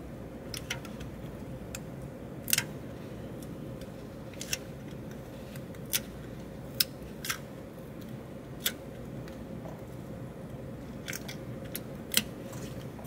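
Scattered small clicks and taps, about a dozen, from fingers working at the vacuum tube and its loose socket inside a Golden Age Premier GA-8000 tube condenser microphone, over a faint steady hum.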